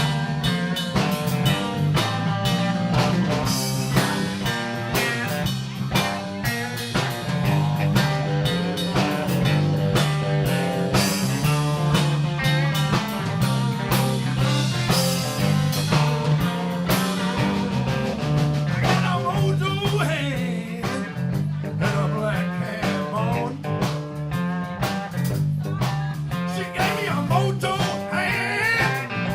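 Blues band playing an instrumental break: a guitar lead over bass and drum kit, with bending notes in the guitar line in the later part.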